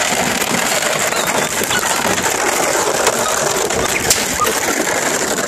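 Empty plastic water bottles crackling and clattering under the paws of a litter of puppies scrambling over them: a steady, dense crinkle made of many small clicks.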